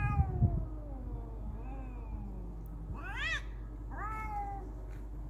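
Fighting cats yowling: one long yowl that slides down in pitch over about two and a half seconds, then two shorter yowls that rise and fall, about three and four seconds in. A few low thumps come at the start.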